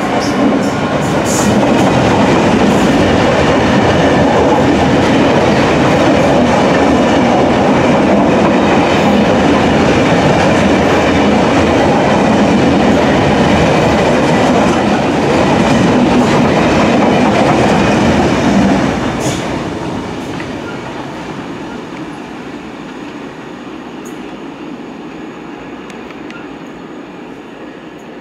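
Freight train's open box wagons rolling past at close range, with steady loud wheel-on-rail noise. About 19 seconds in, the end of the train passes and the sound falls away as the train draws off into the distance.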